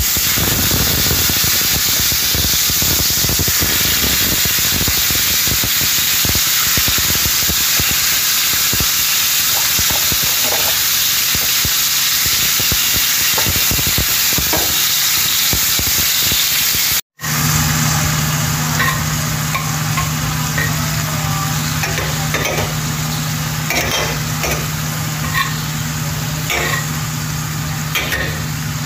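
Chopped onions sizzling in oil in a stainless-steel pot, stirred with a slotted spoon. After a brief dropout about two-thirds of the way through, diced tomatoes and green peppers sizzle as the spoon knocks and scrapes against the pot, over a steady low hum.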